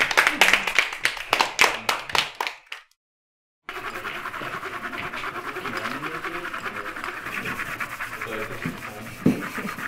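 A small group applauding, the clapping thinning out and stopping after about three seconds. After a short silence, several coloured pencils scratch steadily as they shade across a large sheet of paper, with faint voices underneath.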